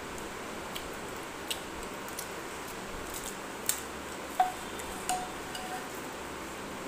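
Fingers working rice and boiled egg in a steel plate: scattered soft clicks. A sharp tap on the plate about four and a half seconds in sets it ringing briefly, and a second tap a little later rings it again.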